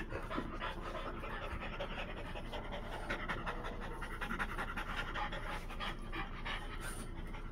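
French bulldogs panting rapidly and steadily at close range.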